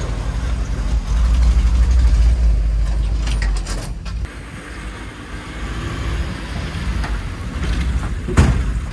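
Petrol-engined Robur truck's engine running with an uneven low rumble. The rumble is louder in the first few seconds and drops back around the middle, with one sharp knock near the end.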